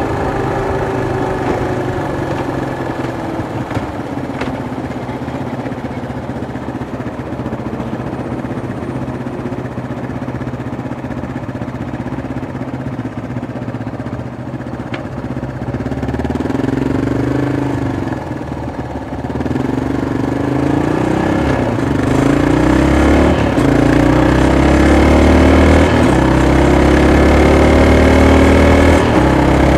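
Yamaha XT225 Serow's 223 cc air-cooled single-cylinder four-stroke engine slowing and idling at a stop, then, about sixteen seconds in, pulling away and accelerating up through the gears, its pitch rising and dropping with each shift and growing louder.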